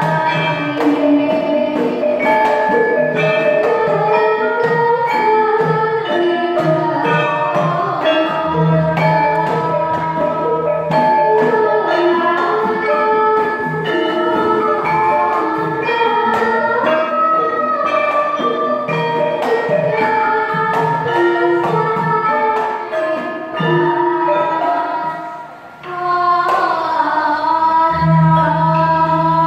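Children's Javanese gamelan (karawitan) ensemble playing: bronze metallophones and gongs struck in ringing, interlocking patterns, driven by a kendhang hand drum, with a girl singing the vocal line into a microphone. The music dips briefly about four seconds before the end, then comes back in full.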